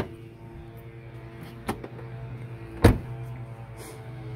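Chevy HHR SS hood release lever pulled, a sharp click at the start, a lighter click about a second and a half later, then a heavy thump near three seconds in, over a steady low hum.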